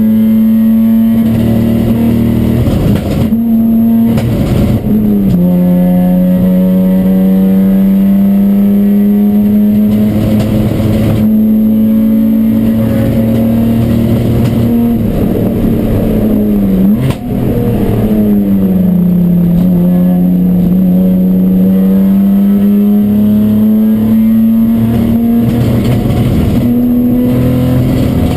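Chumpcar endurance race car's engine running hard on track with a loud, steady note. The note steps down about five seconds in, dips and falls past the middle, then slowly climbs again. This is the misfire the car developed mid-race.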